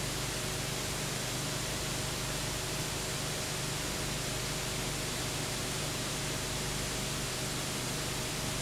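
Steady hiss with a faint low hum beneath it: noise on an otherwise empty soundtrack, with no other sound.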